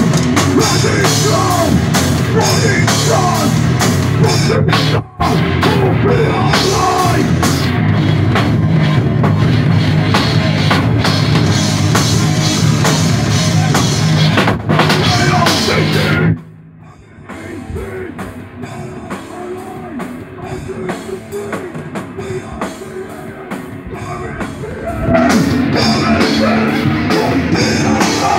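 Live heavy metal band playing loud on electric guitars and drum kit. The band stops dead for a split second about five seconds in, drops abruptly to a much quieter, sparser passage about sixteen seconds in, and crashes back in at full volume about three seconds before the end.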